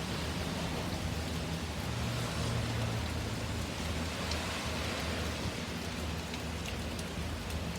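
Heavy rain pouring down steadily in a strong wind storm, an even hiss with a low wind rumble beneath it.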